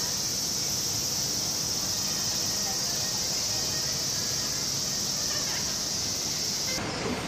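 Cicadas shrilling in a steady, high drone over faint street murmur and passers-by's voices. The drone cuts off abruptly near the end.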